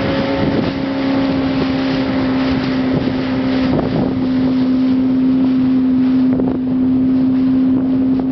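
Motorboat engine running at a steady, unchanging pitch while under way, with wind noise on the microphone.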